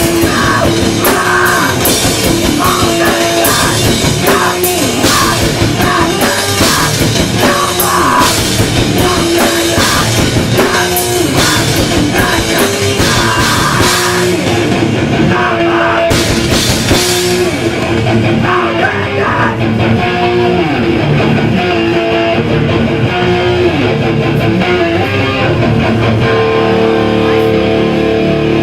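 Hardcore punk band playing live, with distorted electric guitars, bass and a pounding drum kit with crashing cymbals. About two-thirds of the way through the cymbals drop out and the guitars carry on, with chords left ringing near the end.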